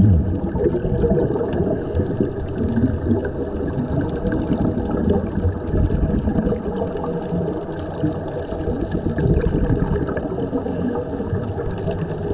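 Underwater bubbling and rushing of air venting from helmet-diving (sea walk) helmets fed by surface air hoses, heard muffled through an underwater camera. It runs steady, with no break.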